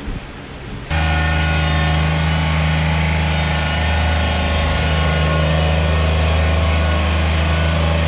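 Compact tractor engine running steadily at constant speed, coming in suddenly about a second in.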